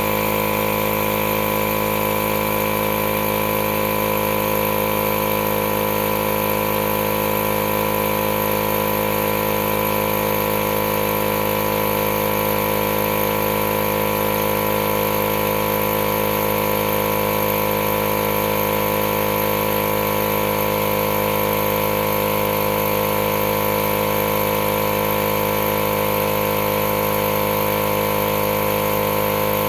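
A battery-powered Milwaukee portable air compressor running steadily at an even pitch while it inflates a flat tire.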